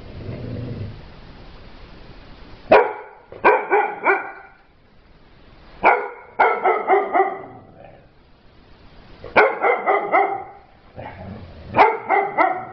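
A brown cocker spaniel barking in four bouts of three or four quick barks each, the first about three seconds in and the rest coming every three seconds or so.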